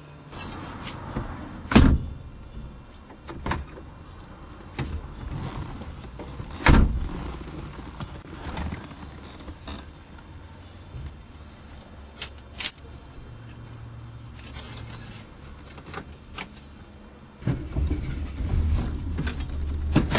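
Cabin noise inside a 1965 Ford XP Falcon in traffic: a low engine and road rumble with scattered clicks and rattles, and two sharp knocks about two and seven seconds in. The rumble grows clearly louder about seventeen seconds in, as the car pulls away or revs.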